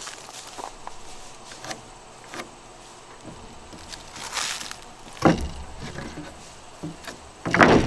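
Wooden boards handled on a stack of plywood sheets: scattered light knocks and scrapes, a sharp knock about five seconds in as a board is laid down, and a louder clatter near the end.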